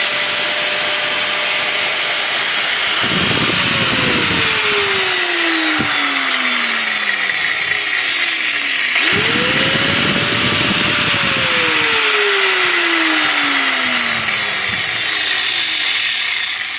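Ozito grinder's electric motor switched on, spinning up quickly to a steady whine, then switched off and winding down over several seconds; this happens twice. The motor stops each time the switch is released, so the repaired power switch now cuts the motor, where before it ran whenever plugged in.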